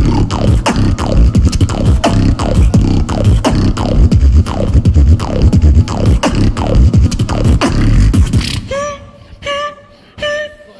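Beatboxing through a microphone and PA: a dense, bass-heavy pattern of kicks and buzzing lip-roll bass, with repeated falling sweeps. About eight and a half seconds in it cuts to a much quieter passage of held, slightly wavering pitched notes.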